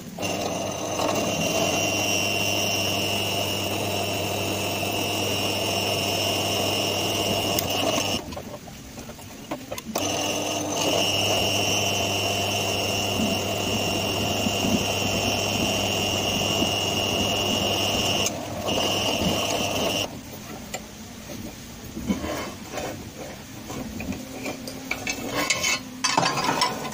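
Bench drill press running with a steady hum and high whine as the bit drills through a steel knife blank; it stops about 8 seconds in, starts again two seconds later and runs until about 20 seconds in, with a brief break near 18 seconds. After that comes irregular scraping and clinking as metal chips are brushed off the drill table.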